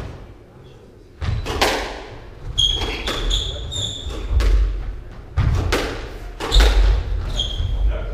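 Squash rally: a squash ball cracking off rackets and the court walls in a string of sharp hits and deep thuds, with court shoes squeaking briefly on the wooden floor.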